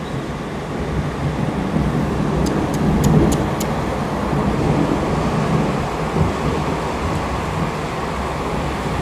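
Steady traffic noise from a busy multi-lane highway, a mostly low rush of tyres and engines that swells a little about three seconds in, with a few faint clicks just before and after.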